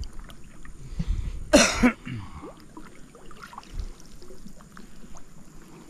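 A man coughs once, sharply, about a second and a half in, over the faint trickle and lapping of river water.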